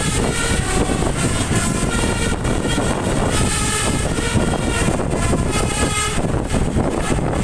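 Indonesian 'telolet' multi-tone bus horn of a Bris Trans bus sounding over steady wind and road noise, in two spells with a short break about two seconds in; the horn stops about six seconds in.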